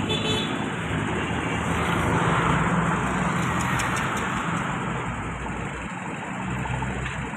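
Motor vehicle engine running steadily with road traffic noise, which swells for a moment about two to three seconds in.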